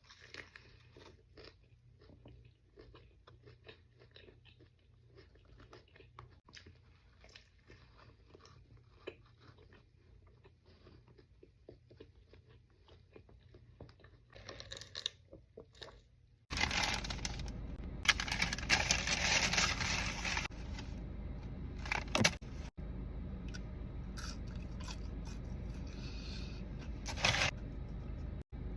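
Close-miked chewing and crunching of fast food: quiet, rapid mouth clicks and crunches. About sixteen seconds in, it gives way abruptly to a louder steady low rumble with several bursts of crackly noise.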